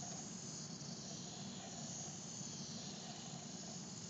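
Faint, steady whirr of two small hobby servo motors turning the wheels of a little robot, over a background hiss.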